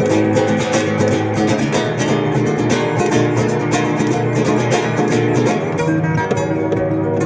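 Acoustic guitar music: a steady run of closely spaced plucked notes.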